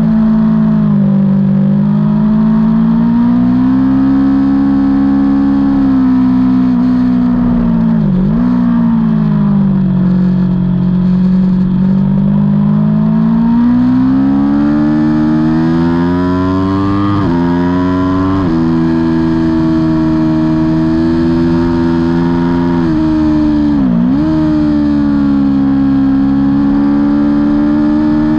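Aprilia Tuono V4 motorcycle's V4 engine under race throttle. Its pitch rises and falls with the track. It climbs steadily through the middle, drops in two quick steps with upshifts a little past halfway, and briefly dips and recovers sharply twice.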